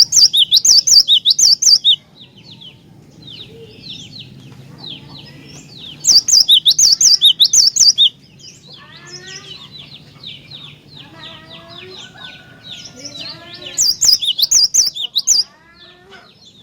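Cinereous tit (gelatik batu) singing: three loud runs of quick, repeated high whistled notes, each about two seconds long, one at the start, one about six seconds in and one about fourteen seconds in, with softer twittering and chirps in between.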